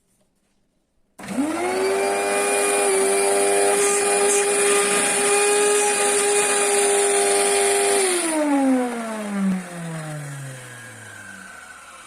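Vacuum cleaner motor switched on about a second in, spinning up quickly to a steady high whine with a rushing air hiss. About 8 seconds in it is switched off and the whine falls steadily in pitch as the motor spins down. The motor runs strongly, but the cleaner's suction is weak.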